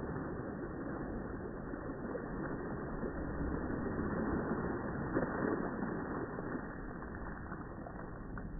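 Swimming-pool water splashing and churning as a swimmer kicks and strokes through it, a steady rush of disturbed water.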